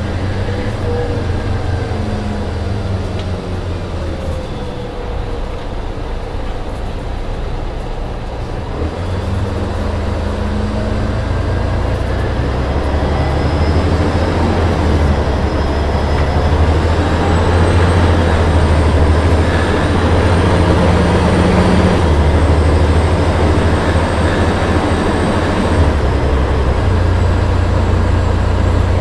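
Cabin sound of an MCA Marathon coach under way: its rear-mounted GM/Detroit Diesel Series 60 14-litre six-cylinder turbo diesel running with a deep, steady drone, heard from the passenger seats. It grows louder over the first half and then holds steady.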